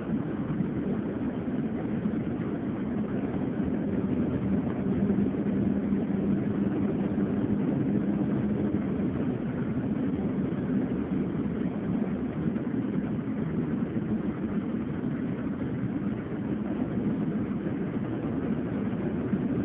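Steady engine hum and road noise heard from inside a moving road vehicle, with no change in pace.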